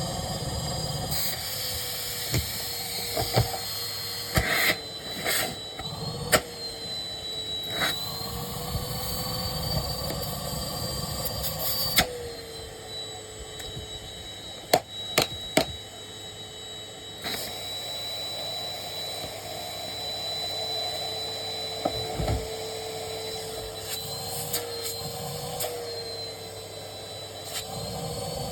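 Numatic Henry vacuum cleaner running while sucking up sawdust, its motor whine sagging and rising in pitch as the load on it changes. Scattered sharp clicks and knocks of debris and the nozzle come through over it.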